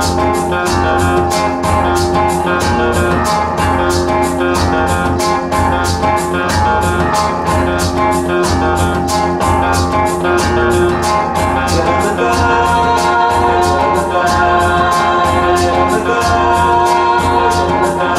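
Rock music with electric guitar, singing and a steady beat, played back through a hi-fi system's tower loudspeakers.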